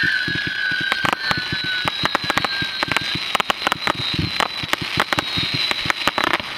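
Tiger's Revenge firework going off in rapid cracks and pops. A high whistle from the rising tails fades out in the first two or three seconds, and the crackling of coloured stars carries on after it.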